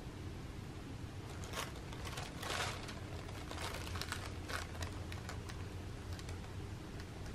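Tissue paper and gift wrapping rustling and crinkling in a string of short bursts as a cat noses through a gift box, loudest about two and a half seconds in.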